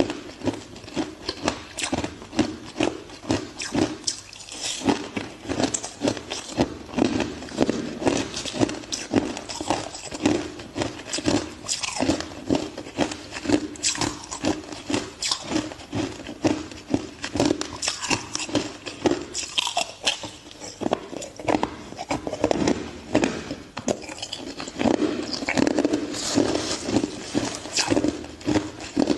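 Ice being bitten and chewed: a continuous run of crunches, several a second.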